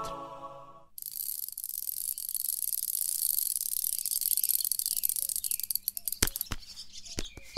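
Music fading out in the first second, then a bicycle being ridden, its chain and freewheel giving a faint, fine rattling tick, with a few sharp clicks near the end.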